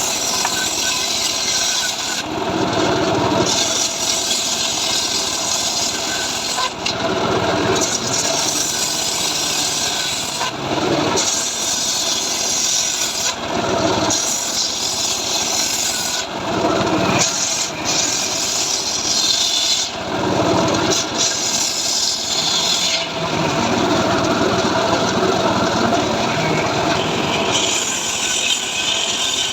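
Engine-powered saw running steadily and cutting dry mahogany. The hiss of the cut rises and falls every two to three seconds as piece after piece is fed through.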